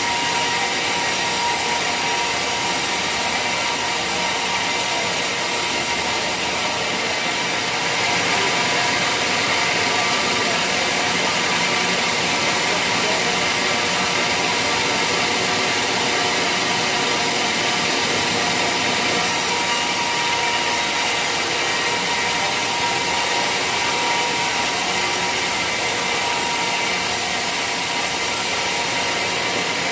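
Sawmill saw running steadily through waru (hibiscus) wood, a continuous sawing noise with a faint steady whine and no pause.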